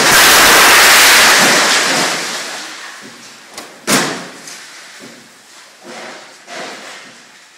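A staged pyrotechnic explosion on a film set: a loud blast roar that fades away over about three seconds. About four seconds in comes a sharp crash, then a few fainter knocks and clatters as debris settles.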